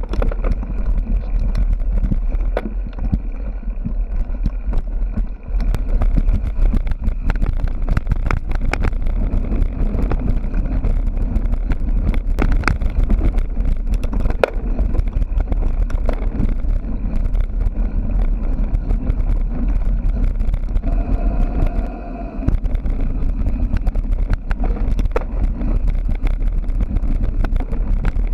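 Bicycle riding over rough ground, heard through an action camera: steady wind rumble on the microphone with constant rattling and knocking from the bike and camera mount.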